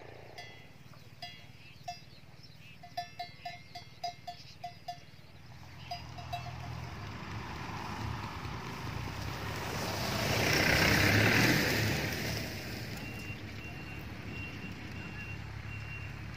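A livestock bell clanking irregularly over the first six seconds. A rushing noise then swells and fades around the middle, and from about two-thirds of the way through comes an even series of short electronic beeps.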